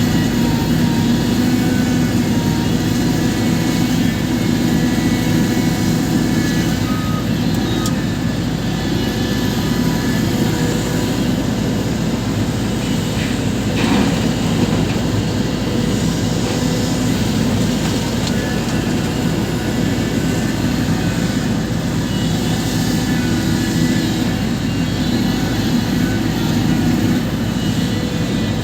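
Heavy diesel engine of a CAT 350 excavator running steadily, a constant deep drone with a single brief knock about halfway through.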